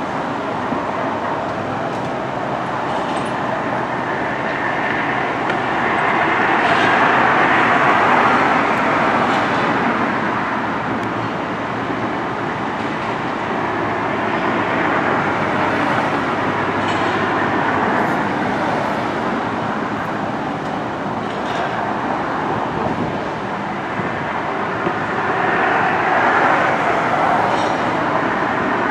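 Continuous rushing noise of a moving vehicle, swelling in level twice: about a quarter of the way in and again near the end.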